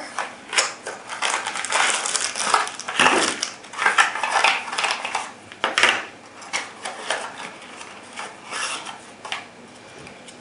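Product packaging being handled and opened to take out a utility knife, with irregular rustling and crackling, busiest during the first six seconds and thinning out after.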